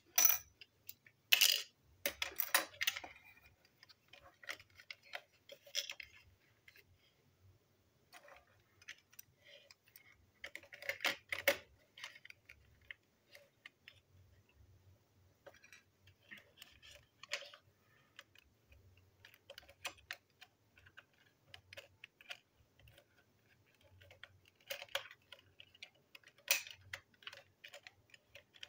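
Small plastic toy train wagon and its metal wheelsets being handled and fitted together: irregular clicks, taps and light scrapes of plastic and metal parts. Busier bursts of clicking come near the start, about 11 seconds in, and again near the end.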